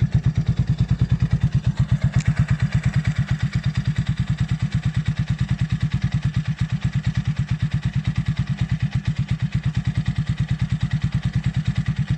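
Italika 250Z motorcycle's single-cylinder engine idling through its exhaust: a steady, even low put-put with a slightly hoarse tone.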